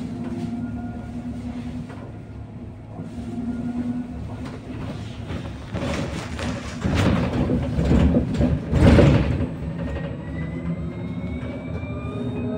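Electric bus heard from inside the cabin: the traction motor's steady whine, a loud rumbling noise for a few seconds in the middle, then the whine rising in pitch as the bus speeds up.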